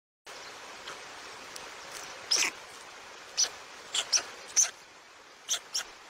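Short high-pitched squeaking calls, about seven in a row, the first and longest a little over two seconds in, over a steady hiss. These are the peeping of white stork chicks in the nest.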